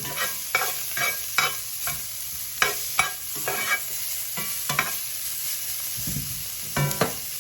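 Steak pieces sizzling in a hot pan, with a utensil clicking and scraping against the pan every second or so as the meat is stirred, pausing briefly near the end.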